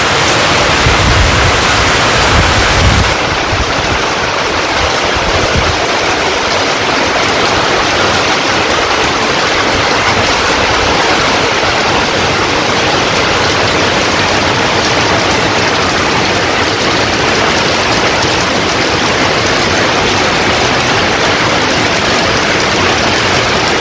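Heavy monsoon rain pouring down, a steady loud hiss of rain on corrugated tin roofs and wet ground, with water running off the roof edges. A low rumble sits under it in the first few seconds.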